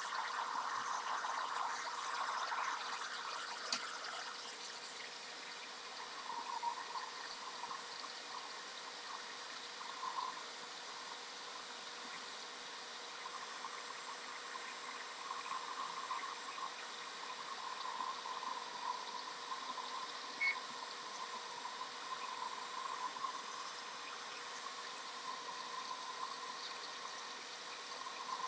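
Hot air rework station blowing a steady stream of air at the board, a continuous airy hiss over a faint steady hum, as it heats the power jack's solder joints to melt them free.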